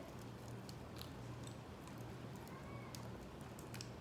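Someone chewing close to the microphone, with scattered small clicks and crunches, plausibly from eating roasted chinquapin nuts.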